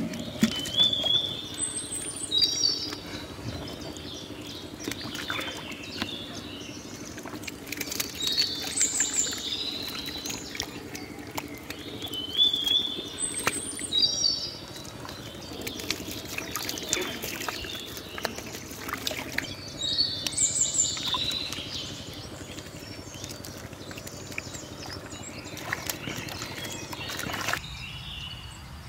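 A songbird repeating a short phrase of high chirps every few seconds, over muddy water trickling and splashing, with scattered sharp clicks and slaps.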